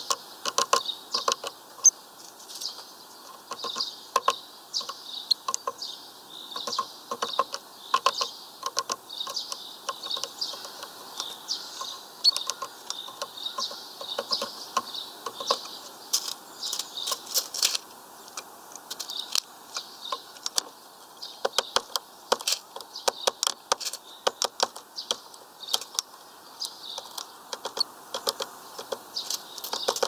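Small birds at a sunflower-seed feeder: repeated short high chirps, over a steady run of sharp clicks and taps from beaks pecking and cracking seeds on the tray and perch.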